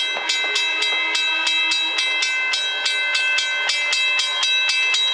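Steel wheels of a passing train squealing on curved track, with several high, steady tones that come and go. Under them runs a regular clicking of about three to four strokes a second.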